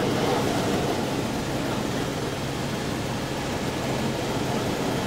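Helicopter engine and rotor running steadily in flight, heard inside the cabin as a constant low hum under a steady rushing noise.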